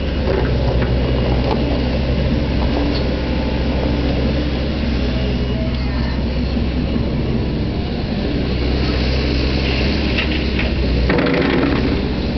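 Hyundai Robex 140-9 crawler excavator's diesel engine running under working load while the machine swings and tips a bucket of soil into a site dumper, with a louder noisy stretch near the end.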